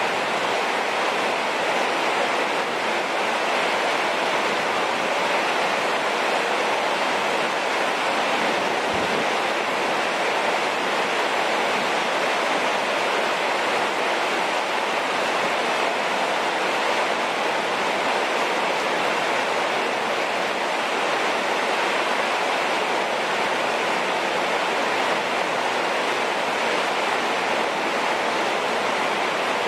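Heavy rain falling, a steady, even hiss that does not let up.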